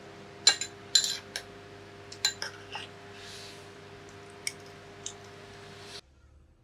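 Cutlery clinking and tapping against dishes, several light separate knocks, over a soft sustained musical tone; all sound cuts off suddenly near the end.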